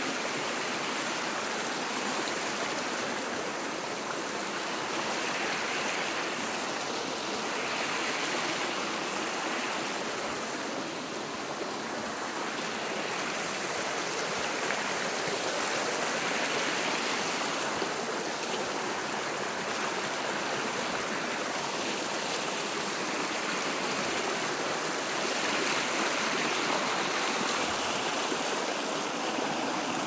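Creek water running over a rocky bed in shallow riffles and small rapids: a steady rush.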